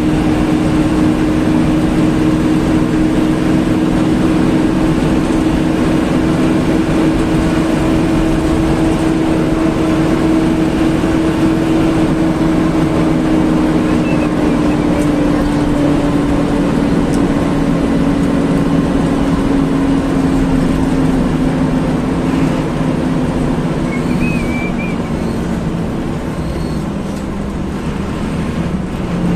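Intercity bus engine running at highway speed with steady road noise, heard from inside the cabin at the front. The engine note slowly drops in pitch partway through as it eases off, and the sound softens a little near the end.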